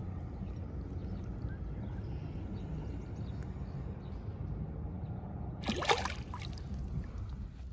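A bass released by hand kicks free and splashes back into shallow pond water: one short, sharp splash about six seconds in, the loudest sound. Before it, a steady low rumble.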